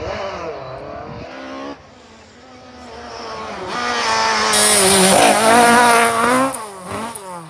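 Rally car engine at speed: a car heard from afar, then a Ford Escort Mk2 rally car approaching flat out, its revs rising and dipping through gear changes, loudest as it passes close by, then the pitch falls away as it goes off.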